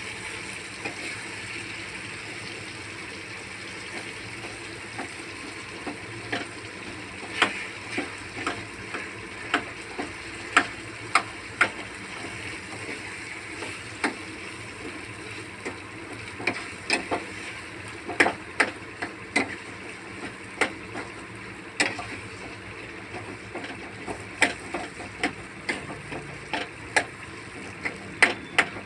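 Metal ladle scraping and clinking against a kadhai as eggplant bharta is mashed and stirred, over a steady low sizzle from the pan on a low flame. The sharp clinks begin several seconds in and come irregularly, about one or two a second.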